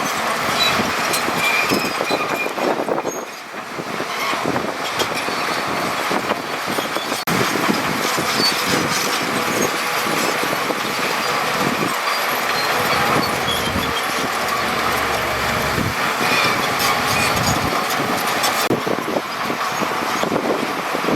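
Heavy diesel earthmoving machinery working steadily: engine noise mixed with continual rattling and clatter of tracks and stone.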